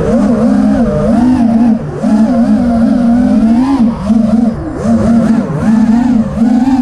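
Racing quadcopter's brushless motors (Emax RS2205 2300 kV) spinning 5-inch tri-blade props in flight: a loud buzzing whine whose pitch rises and falls constantly with the throttle, with several short dips in loudness.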